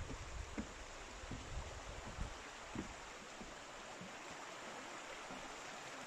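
Shallow stream running over stones: a steady rush of water. In the first few seconds, a few soft thuds of footsteps on a wooden footbridge and wind rumbling on the microphone.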